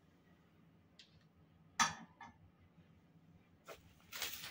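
A few faint clicks and taps, then a short rustle near the end as a thin multi-core load cell cable is picked up and handled.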